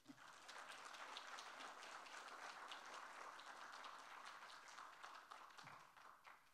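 Audience applauding: a dense patter of many hands clapping that starts at once and fades out near the end.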